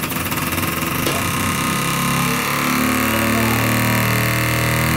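Toilet cistern making a horrendous noise while it fills: a loud, steady humming drone over a hiss of running water, its pitch wavering partway through. The drone cuts off suddenly at the very end, the sort of fill-valve vibration that only stops when the toilet is tapped.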